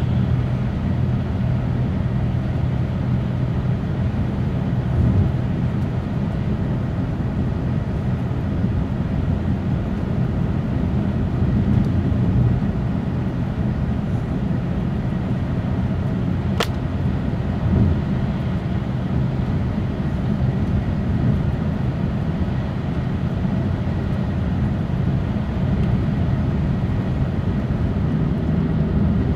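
Steady running noise inside an E6-series Shinkansen car at speed: a low, even rumble and hum of the train rolling along the track. A single sharp click cuts through once, about halfway through.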